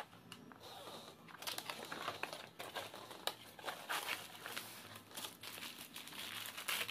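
Plastic packaging crinkling and rustling as a cardboard box is opened and its bagged contents are pulled out: an irregular run of crackles and small clicks, busier from about a second and a half in.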